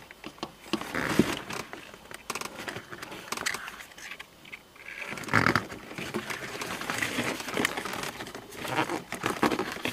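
Close handling noise of thin wire being twisted around sensor wiring at a dashboard opening: irregular rustling, scraping and small plastic clicks, with one brief louder sound about halfway through.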